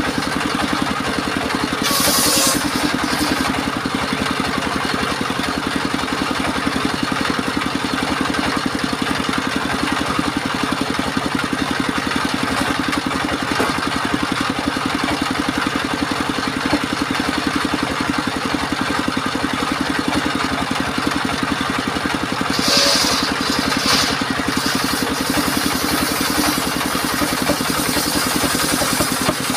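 Engine of a portable circular-saw sawmill running steadily, with a short hiss about two seconds in and again at about 23 seconds.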